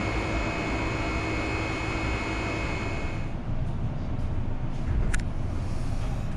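Subway train noise: a steady hum with several held tones, changing abruptly about three seconds in to a low rumble inside the train carriage, with a brief high squeak near the end.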